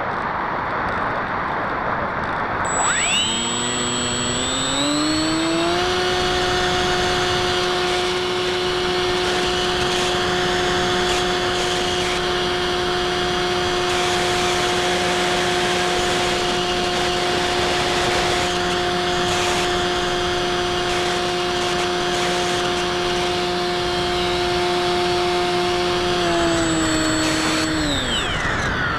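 Stock Bixler 2 electric motor and propeller heard from the onboard camera: wind rush alone at first, then about three seconds in the motor spools up with a rising whine and runs at a steady pitch under power, winding down with a falling whine near the end.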